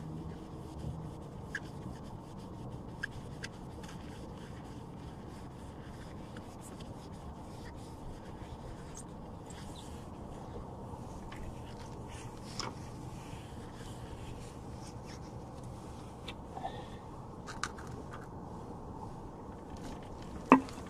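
Cloth wiping and rubbing wax and grease remover over a fibreglass-and-epoxy rust repair on a car's wheel arch: faint scrapes and small clicks over a low steady hum, with one sharp knock near the end.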